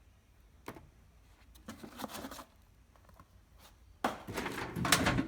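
Parts being handled and put away in a metal tool-chest drawer: a click just under a second in, a brief rustle around two seconds, then a louder scraping rattle from about four seconds in.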